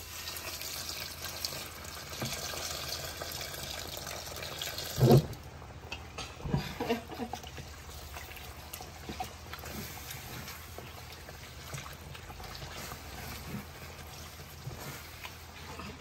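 Chicken stock poured from a pot into a pan of rice, a steady liquid pour for about four and a half seconds. It ends with a single heavy thump, the loudest sound, followed by quieter sounds of the rice being stirred.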